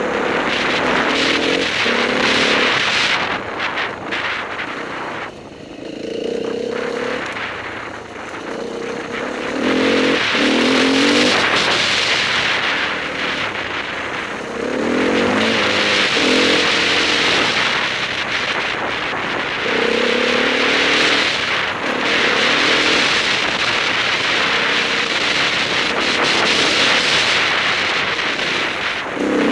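Enduro motorcycle engine ridden hard, its revs rising and falling again and again as the throttle is worked, over a steady rush of noise.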